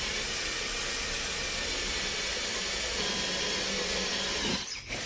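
SfunPro 16V cordless drill running steadily with an 8 mm masonry bit grinding into concrete in plain drill mode, with no hammer action. It stops near the end with a brief louder knock.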